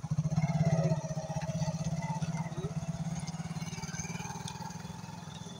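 A vehicle engine running close by, with a rapid low pulsing, loudest in the first second and then slowly fading. Faint voices can be heard in the background.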